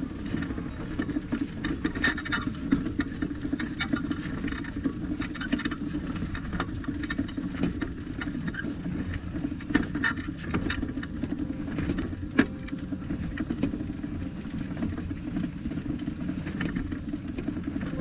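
Vehicle driving along a rough dirt road: a steady low rumble of engine and tyres, broken by many small rattles and knocks over the bumps, with a sharper knock about twelve seconds in.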